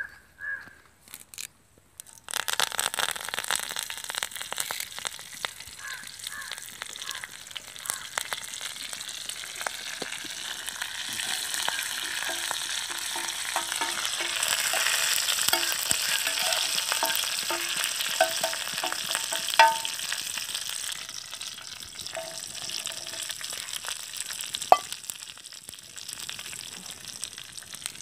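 Curry leaves and garlic hit hot oil in a black iron pan and start sizzling suddenly about two seconds in. The sizzle swells as they are stirred with a metal spoon, then eases off in the last few seconds. A couple of sharp clinks of the spoon against the pan stand out.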